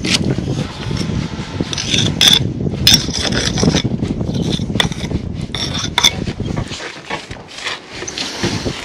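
Steel brick jointer scraping along fresh sand-and-cement mortar joints between bricks, a series of short scraping strokes that thin out near the end.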